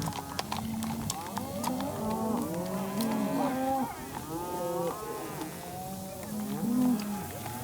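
A herd of cattle mooing, many calls overlapping one another without a break.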